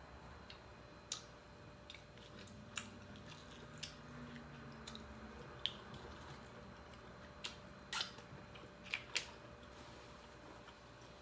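Close-up eating sounds from a seafood meal: scattered sharp clicks, smacks and cracks of chewing and handling Dungeness crab, about a dozen, with a quick pair near the end.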